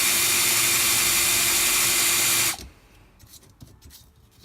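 Electric drill running steadily, drilling out the old rivets that hold a car door's window felt strip, then cutting off suddenly about two and a half seconds in; a few faint clicks follow.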